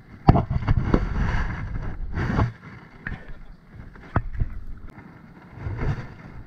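Handling noise on a chest-mounted action camera: hands knocking, brushing and rubbing against it while working a hook out of a caught fish, with several sharp knocks and a rougher rubbing burst about two seconds in.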